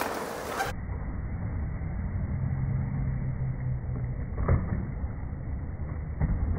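Skateboard wheels rolling on concrete, slowed down so they sound deep and muffled, with a low rumble and hum. There is a knock about four and a half seconds in and a fainter one near the end as the board rides up and over the coping.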